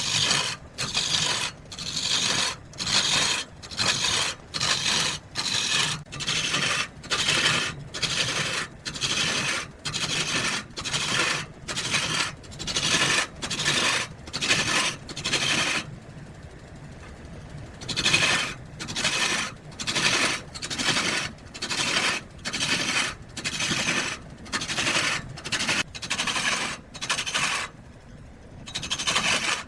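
Hand tool scraping back and forth over oak timber in steady, even strokes, a little over one a second, pausing briefly twice.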